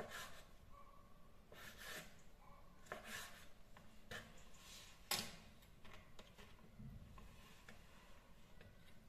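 Kitchen knife slicing squid tubes into rings on a wooden cutting board: faint cuts and scrapes about once a second, with one sharper knock on the board about five seconds in.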